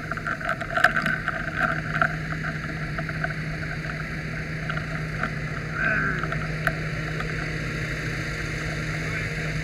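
Fire apparatus engine running steadily at the scene, a constant low hum, with faint voices now and then.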